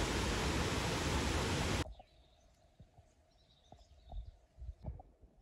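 A loud, steady rushing noise cuts off abruptly about two seconds in. What follows is much quieter: soft, irregular footsteps on a trail and faint birdsong.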